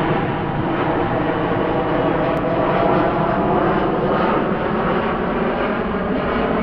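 Jet airliner flying low overhead, a loud, steady engine noise.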